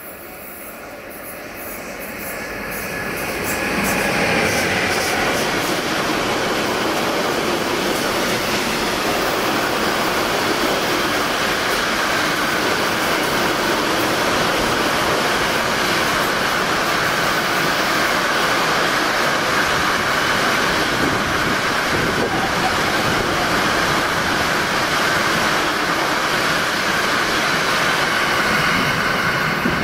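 Freight train approaching, growing louder over the first four seconds, then its wagons rolling past steadily and loudly without a break.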